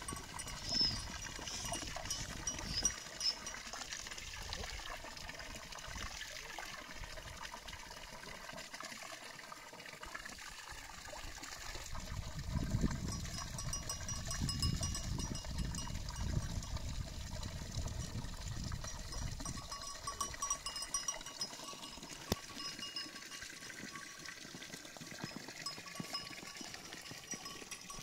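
Herd of goats at a village water trough, with livestock bells faintly clinking and water trickling into the trough. There is a low rumble through the middle stretch.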